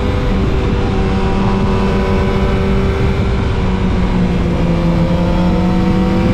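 Yamaha MT-09 SP's 890 cc inline-three engine running steadily under a rider at road speed, its pitch sagging slightly through the middle and rising a little near the end, over a steady rush of wind noise.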